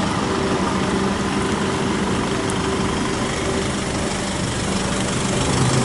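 Steady outdoor traffic noise with the low hum of a vehicle engine idling.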